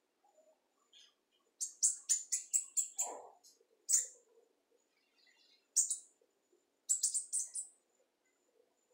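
Caged bananaquit (sibite) singing in quick runs of short, very high-pitched notes. It gives a run of about eight notes early, single phrases about four and six seconds in, and another short run near the end.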